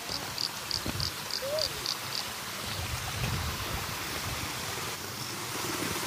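Steady rush of water from a small waterfall and rocky creek, with a quick run of high chirps in the first two seconds.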